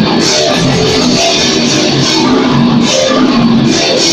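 Metal band playing live in a practice room: distorted electric guitar and a drum kit, loud and unbroken, with repeated cymbal crashes.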